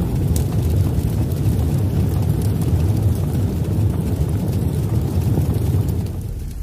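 Steady low rumble of an outro sound effect, easing off near the end.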